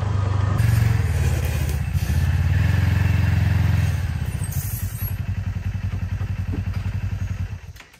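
Kubota Sidekick UTV's twin-cylinder gasoline engine running, louder for the first few seconds, then settling to an even, pulsing idle about four seconds in. It cuts off suddenly near the end.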